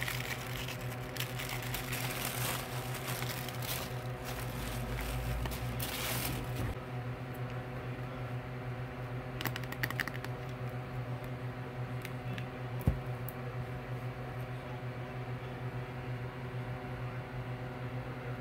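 Shiny plastic wrapping crinkling and rustling as hands pull it open, for the first several seconds. Then a few light clicks and, about 13 seconds in, one sharp click as the metal clasp of the eyeshadow palette case is opened, over a steady low hum.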